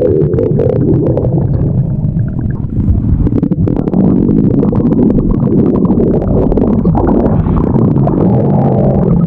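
Stomach growling: continuous, irregular low gurgling rumbles, loud and close to the microphone, with many small crackles.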